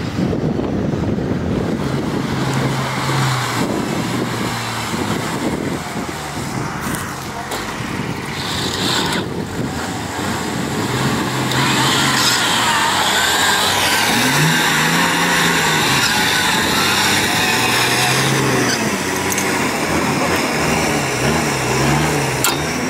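Nissan Patrol off-road truck's engine running and revving in short rises and falls as it climbs a steep slope on a winch line. An electric winch whines over the second half.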